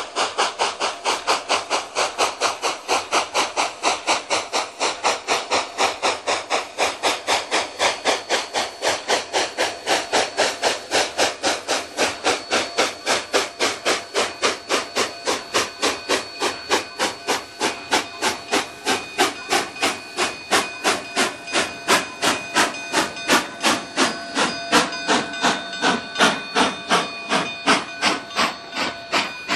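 Narrow-gauge steam locomotive working hard, its exhaust chuffing sharply at about three to four beats a second as it approaches and passes close by. A thin steady ringing tone joins in under the chuffs from about halfway.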